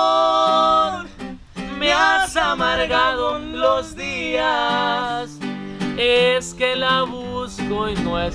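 A young man singing to his own strummed acoustic guitar.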